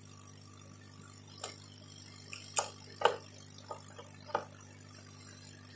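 Small screwdriver turning the screws that hold a hard drive's circuit board, giving a few scattered light clicks over a faint steady hum.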